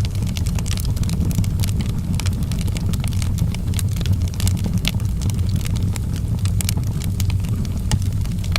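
Wood fire burning in a fireplace, crackling with many quick irregular pops and snaps over a steady low rumble of the flames.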